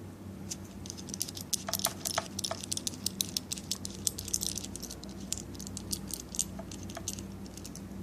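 Small metal parts of a bicycle seat quick-release clamp being handled and opened, giving many light, irregular clicks and rattles.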